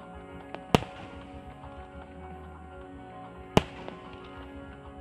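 Two loud aerial firework bursts about three seconds apart, each a sharp bang with a short echoing tail, over music playing throughout.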